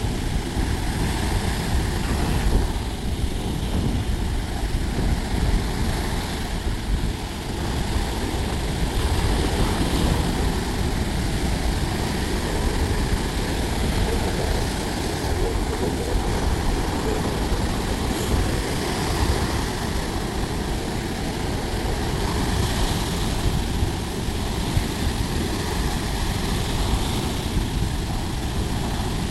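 Sea waves on the shore, a steady roar of surf with heavy wind rumble on the microphone.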